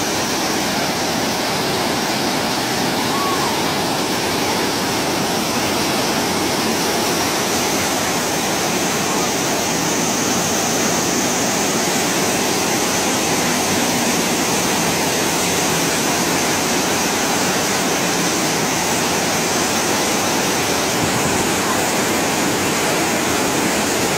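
Muddy flash-flood water rushing in a torrent down a street, a loud, steady rush.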